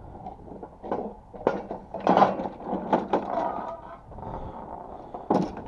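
Irregular knocks, clicks and scrapes of tools and mower parts being handled during repair work, the loudest knock a little after two seconds in.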